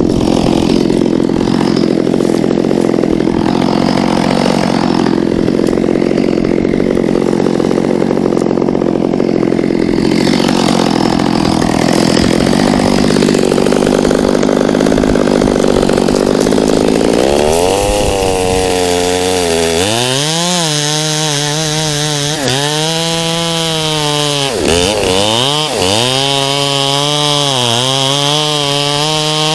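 Two-stroke chainsaw running steadily at low speed, then revved up about seventeen seconds in and cutting through a section of tree trunk. Its pitch dips and recovers several times as the chain bogs under load in the wood.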